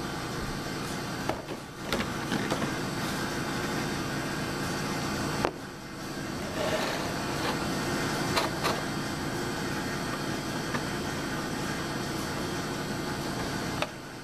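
Clear plastic blister packaging handled, crinkling, with a few sharp clicks as it is worked loose, over a steady background hum.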